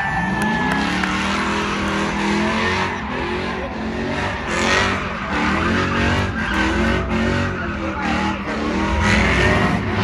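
Motor vehicle engine running loud, its pitch rising and falling.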